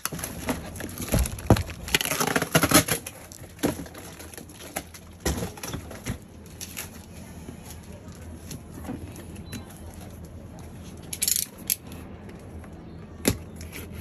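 Cardboard packaging being handled: a boxed helmet is pulled out of a cardboard shipping carton and set down, with irregular rustling, scraping and knocks of cardboard on cardboard, busiest about two to three seconds in, and a single sharp click near the end.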